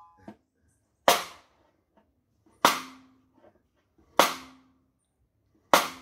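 Snare drum rim shots: four sharp cracks, evenly spaced about a second and a half apart, each dying away quickly with a short ring from the drum.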